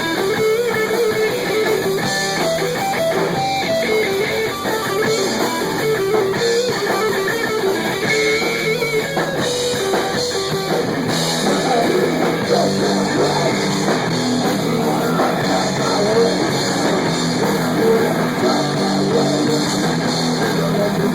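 Rock band rehearsing, with guitar and drum kit playing continuously.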